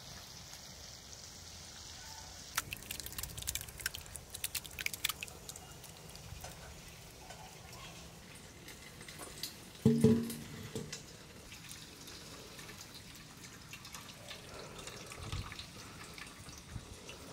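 Water dripping and trickling out of curd as it is strained to remove its whey, with a quick run of sharp clicks between about two and a half and five seconds in. About ten seconds in, a brief low-pitched voice-like sound is the loudest thing.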